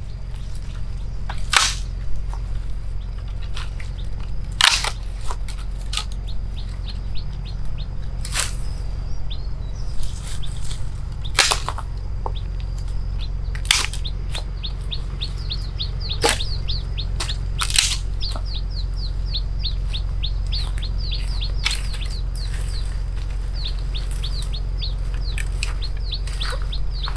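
Dry sticks and branches snapping with sharp cracks, one every few seconds, as firewood is broken by hand. A rapid series of short high chirps runs in the background from about a third of the way in.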